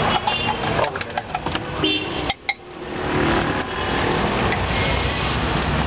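Busy roadside street-stall background: a steady noise of passing traffic, with a run of sharp clicks and knocks in the first two seconds and a short horn-like tone about two seconds in. The sound drops away for a moment about two and a half seconds in, then the steady noise returns.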